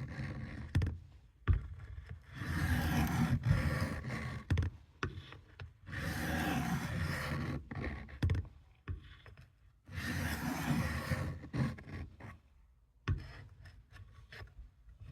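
Vintage Camillus knife's steel blade scraping across a sharpening stone in repeated strokes, taking the burr off the edge. The strokes come in stretches of a second or two with short pauses between them and a few sharp knocks.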